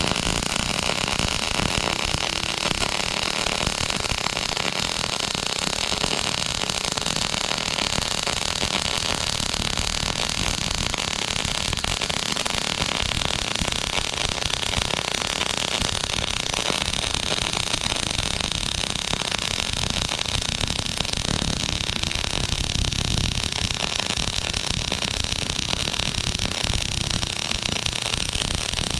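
MIG welder laying a continuous bead on a truck axle spring perch: the wire-fed arc's steady, even crackling hiss.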